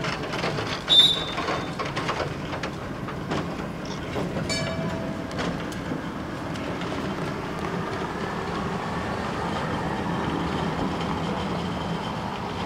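Vintage electric tram rolling over a street crossing, its wheels clicking on the rails. There is a short sharp squeal about a second in and a brief ringing high tone near the middle. It then gives way to steady road-traffic noise as a car drives across.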